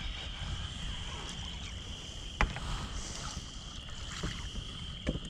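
Outdoor ambience on an open boat: a low, steady wind rumble on the microphone under a steady high-pitched whine, broken by one sharp knock about two and a half seconds in and a smaller one near the end.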